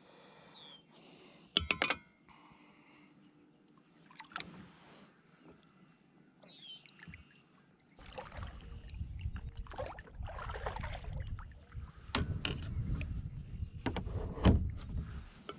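Handling noises in a kayak: knocks and rubbing against the hull as gear and the paddle are moved, growing louder and busier about halfway through. A bird chirps faintly once or twice.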